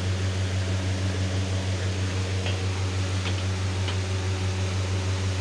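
Electric fan motor humming steadily at the charcoal grill: a low, even hum over a hiss of moving air, with a few faint ticks in the middle.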